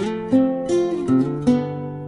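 Background music: plucked guitar notes in a quick run of about five, each struck sharply and ringing away.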